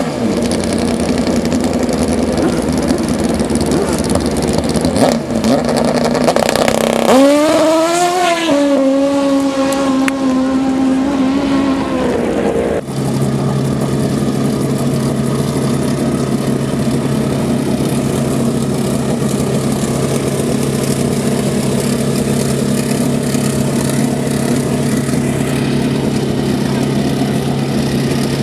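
Drag-racing motorcycle engines running. About seven seconds in, one engine revs up and holds a steady note, which cuts off abruptly near the middle. A steady low engine drone follows.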